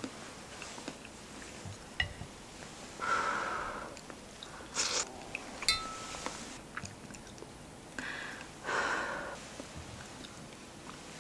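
Quiet eating of a bowl of nurungji soup with a spoon. The spoon clicks on the ceramic bowl, once with a short ring about halfway through, among soft chewing and two breathy sounds about five seconds apart.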